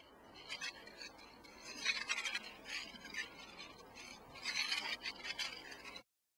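Small toy car's wheels scraping and rolling over brick paving in a few short pushes; the sound cuts off suddenly near the end.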